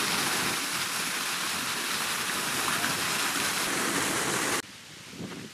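Water from a small garden waterfall splashing in a steady rush. It cuts off abruptly about four and a half seconds in, leaving a much fainter hiss.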